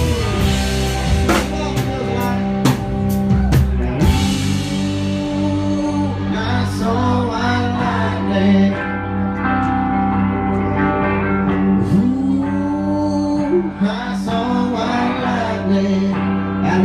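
Live country-rock band playing, with electric guitar and drum kit. The drums hit hard for the first few seconds, then drop out about four seconds in, leaving held guitar notes with sliding bends.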